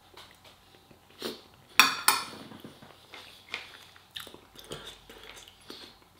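Eating at close range: chewing, and a fork clinking and scraping on a plate of rice and chicken in short, scattered clicks, the loudest about two seconds in.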